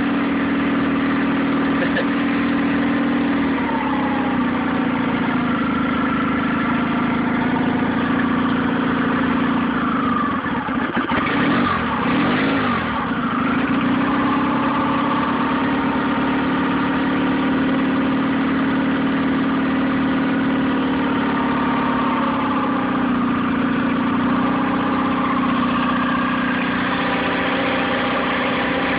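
Nissan 9.8 hp outboard motor idling on choke as it warms up from a cold first start, its speed wavering and dipping then picking up again about halfway through. The idle is rough and a little low.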